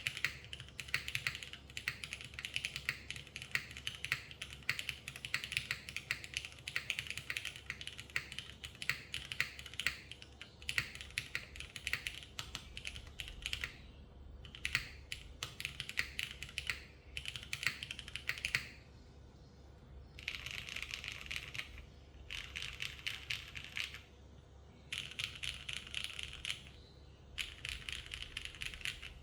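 Typing on a TKD Cycle 8 mechanical keyboard with modded vintage Cherry Black linear switches, an aluminium plate and GMK keycaps. There is a fast, unbroken stream of keystroke clacks, then, after about eighteen seconds, short runs of rapid typing separated by brief pauses.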